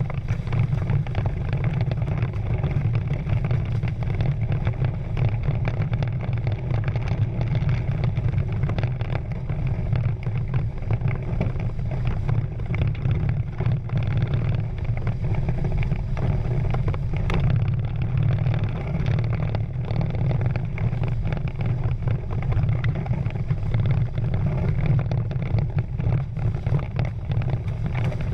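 Steady low rumble of wind on the microphone mixed with water rushing and splashing along the hulls of a Prindle 16 catamaran sailing at speed.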